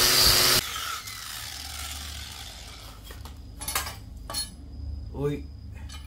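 Power buffing wheel polishing a welded stainless-steel exhaust pipe with white polishing compound, running with a steady whine and switched off about half a second in. Afterwards a low hum remains, with a few sharp knocks and clinks of the metal pipe being handled.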